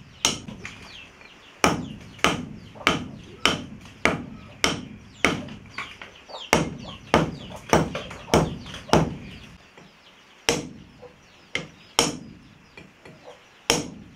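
Hand hammer striking a chisel against a rough stone slab, chipping it into shape for a stone lithophone bar. Sharp, short-ringing blows come about every half second in a steady run, break off briefly after about nine seconds, then resume as a few slower, spaced strikes.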